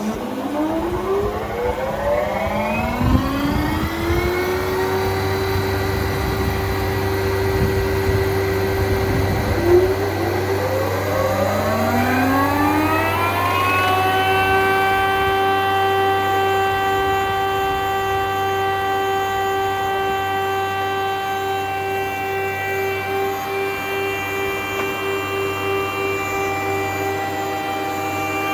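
Mida P5E four-sided planer's cutter-head motors spinning up in two stages, several rising whines climbing together and levelling off, then running at a steady pitch.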